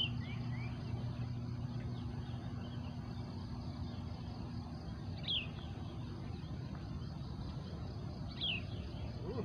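Steady low mechanical rumble with a faint hum, and a bird giving three short falling chirps: at the start, about halfway through, and near the end.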